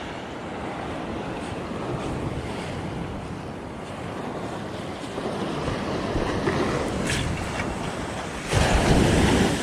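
Small waves washing up and drawing back on a sand beach, with wind on the microphone; a louder rush of water or gust about a second before the end.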